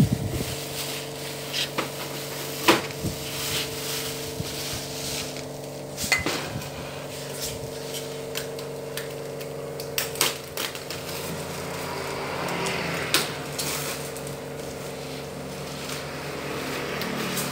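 Irregular clicks and knocks of air-conditioner parts and packaging being handled during unboxing, over a steady background hum.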